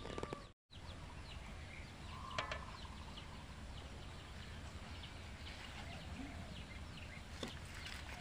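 A chicken clucks once, about two and a half seconds in, over a steady low rumble and faint scattered crackles. The sound drops out completely for a moment just after the start.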